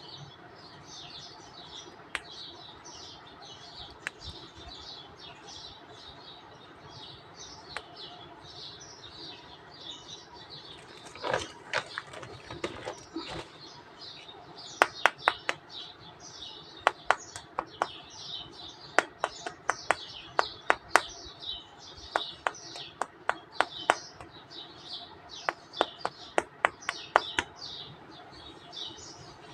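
Small birds chirping steadily, several short high chirps a second. Over it come sharp clicks and taps: a short cluster a little before halfway, then a long irregular run through most of the second half, louder than the birdsong.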